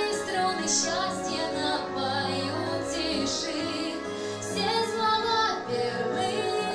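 A woman sings a song over instrumental backing music.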